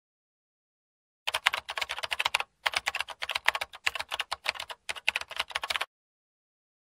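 Rapid computer-keyboard typing clicks, starting about a second in and running for about four and a half seconds with two short breaks, set in dead silence: an edited-in typing sound effect.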